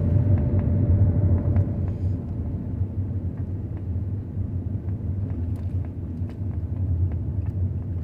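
Car driving, heard from inside the cabin: a steady low rumble of engine and road noise, with faint scattered ticks.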